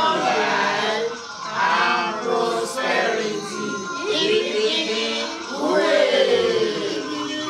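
Several voices singing together, choir-style.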